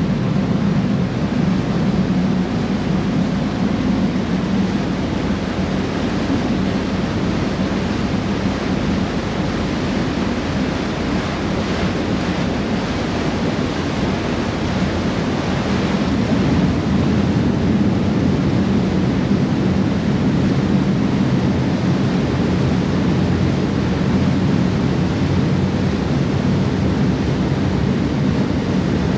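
Ferry under way: a steady low engine drone with water rushing along the hull and wind buffeting the microphone.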